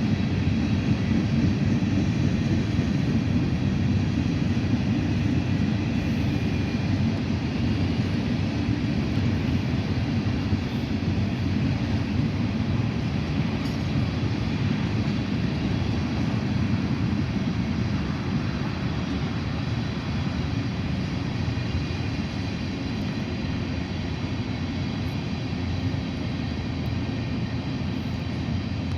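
Steady low rumble of heavy diesel machinery running continuously, easing slightly toward the end.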